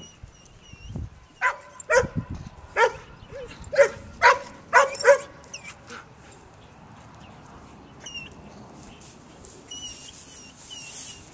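Dog barking in a quick run of about eight barks, starting about a second and a half in and stopping around five seconds in. Small birds chirp faintly in the background.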